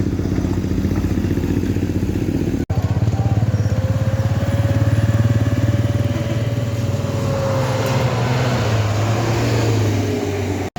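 A vehicle engine running steadily, with a faint whine that rises and falls over a few seconds. The sound drops out abruptly twice, about two and a half seconds in and just before the end.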